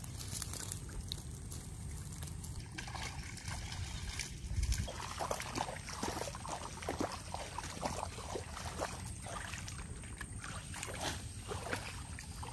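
Shallow floodwater splashing and sloshing as a man wades through it and handles a mesh trap net, with a run of short splashes from about five seconds in.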